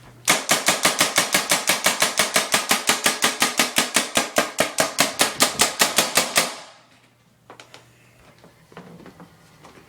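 A rapid, even series of sharp knocks, about six a second, that runs for about six seconds and then stops suddenly.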